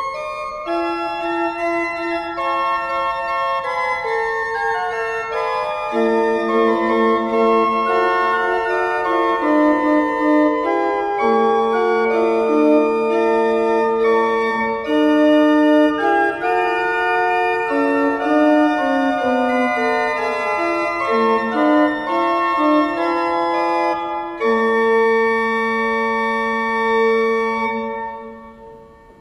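Background music of slow, sustained keyboard chords with several moving parts, fading out near the end.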